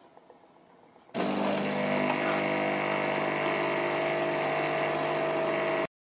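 DeLonghi Magnifica Evo bean-to-cup coffee machine running with a steady buzzing hum while it dispenses. The hum starts suddenly about a second in and cuts off abruptly near the end.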